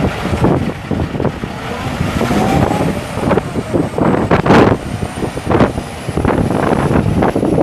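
Semi tractor's Cummins ISX 14.9-litre six-cylinder turbo diesel running as the truck drives away, with heavy wind buffeting on the microphone. A faint high whistle runs through the second half, and there is one louder burst of noise about halfway.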